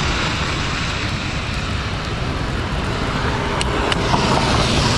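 Steady wind rumble on the microphone and road hiss while an e-bike is ridden through steady rain, with two light ticks near the end.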